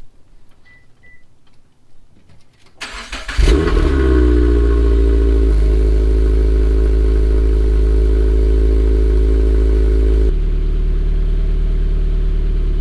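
Toyota 86's FA20 flat-four engine cranked over and started about three seconds in, settling into a steady fast idle that steps down twice. Two short faint beeps come before the start.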